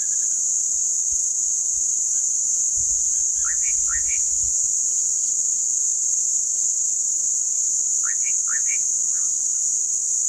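A steady, high-pitched insect drone, with a bird giving short rising calls in two quick groups of three, about three and a half seconds in and again about eight seconds in.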